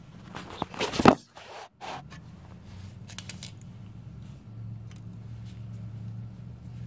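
Scraping and rustling handling noise, loudest about a second in, then a faint steady low hum.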